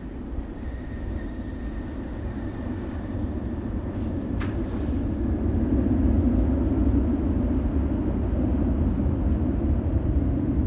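Jet airliner's engines rumbling during its landing rollout, the roar building to its loudest about six seconds in, with a thin steady engine whine that fades out about five seconds in. A single sharp click about four seconds in.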